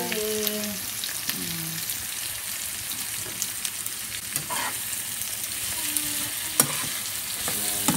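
Onion, ginger and red bell pepper strips sizzling in a nonstick frying pan, with a steady high hiss throughout. From about the middle on, a spatula stirs them, clicking and scraping against the pan a few times.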